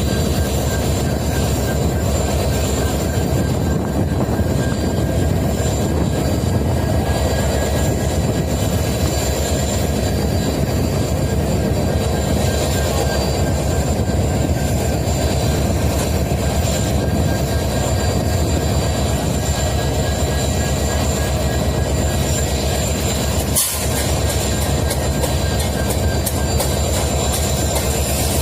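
EMD WDG4 (GT46MAC) diesel-electric locomotives, each with a two-stroke V16 engine, running steadily after start-up: a deep, even engine hum with a thin steady whine above it.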